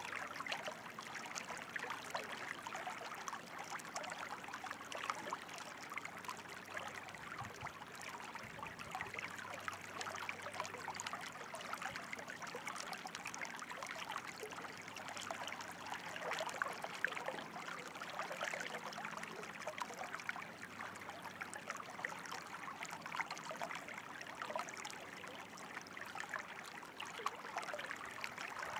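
Flowing water running steadily, a dense unbroken wash of many small splashes.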